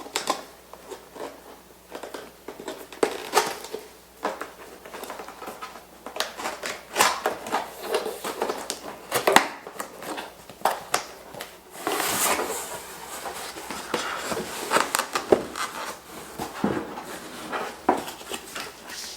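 A cardboard box and its packaging being opened and handled by hand: irregular taps, knocks, scrapes and crinkling, with a longer rustle about twelve seconds in.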